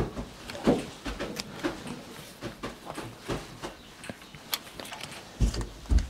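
Scattered small clicks and soft knocks as a Percheron draft horse's muzzle whiskers are trimmed in a wooden stall, with a couple of heavier thumps near the end.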